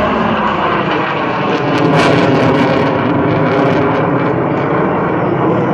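Four Blue Angels F/A-18 Hornet jets flying past overhead in formation: loud, steady jet engine noise with slowly gliding tones, and brief crackling about two seconds in.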